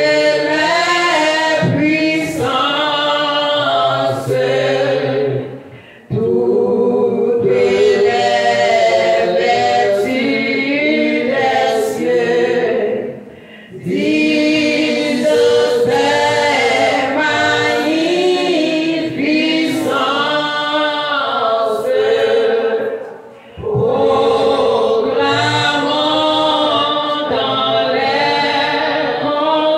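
A congregation singing a hymn together in long phrases, with brief pauses for breath about 6, 13 and 23 seconds in.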